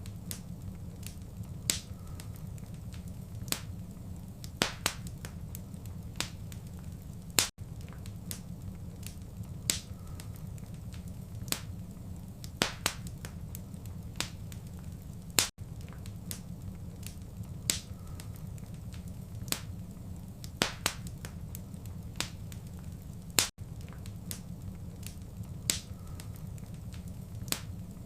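Wood fire crackling, with sharp irregular pops and snaps over a steady low rumble. The same few seconds of crackle repeat about every eight seconds, each repeat joined by a brief dropout.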